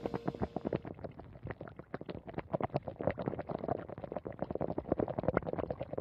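Snail and duck-feet stew bubbling at a boil in its pot: a dense, irregular patter of small pops and blips from the broth.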